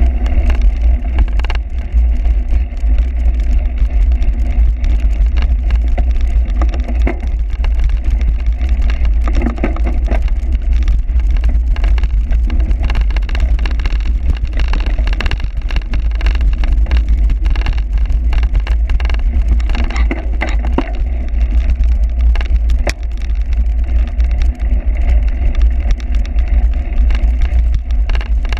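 Bicycle ridden hard over a rough cyclocross course: a steady low rumble with many small knocks and rattles from the bumpy ground.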